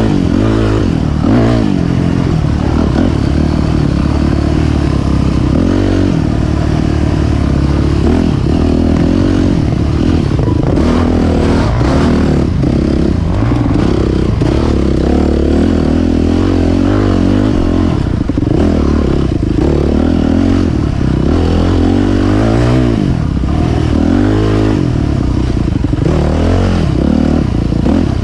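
Dirt bike engine ridden hard off-road, its revs rising and falling continuously as the throttle is worked, with scattered clatter and knocks from the bike over rough ground.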